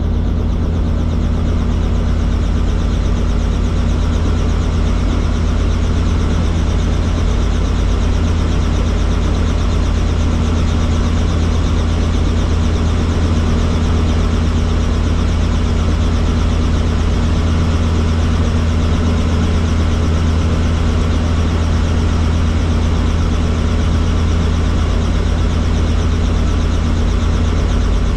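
Helicopter turbine engine and rotors running with a loud, steady drone.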